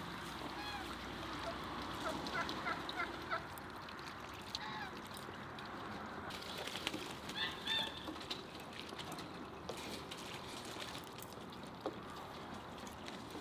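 Farmyard birds calling in short bursts, a cluster about two to three seconds in and the loudest calls about seven seconds in, over the faint crackle of kindling catching in a wood stove.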